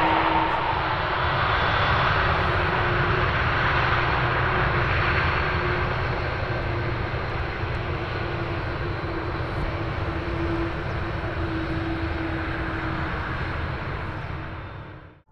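Airbus A330 airliner's jet engines running as it rolls out on the runway after landing, spoilers raised. A steady, loud jet noise with a whine that falls in pitch in the first second, slowly fading, then cut off suddenly at the end.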